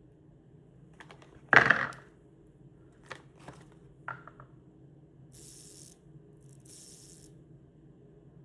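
Copper and brass magnetic fidget ring being flicked and handled: a loud metallic clack about one and a half seconds in, several lighter clicks, then two short high rasping sounds.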